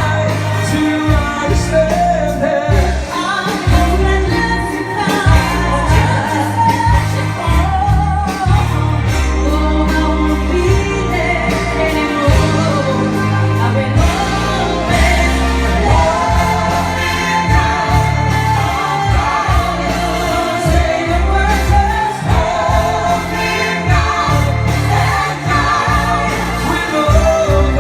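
Pop ballad played by a band, with singing over steady bass notes.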